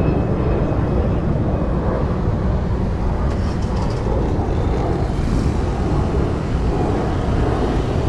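Steady low rumble of outdoor background noise with no distinct events.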